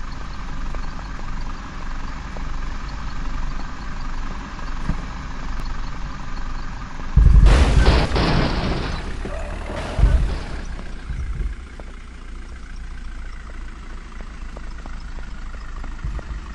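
Heavy diesel engine running steadily. About seven seconds in comes a sudden loud burst of rushing noise lasting over a second, and a shorter one follows about three seconds later.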